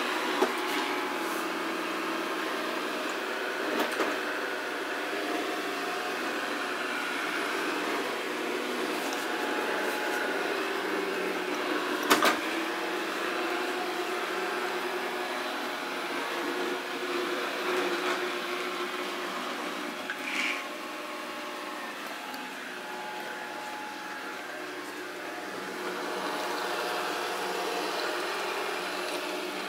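Samsung SR8751 robot vacuum running with a steady motor and brush whir, with a few short knocks, the loudest about twelve seconds in.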